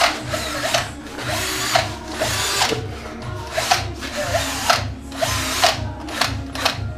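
Cordless drill whirring in repeated short bursts, over background music with a steady beat.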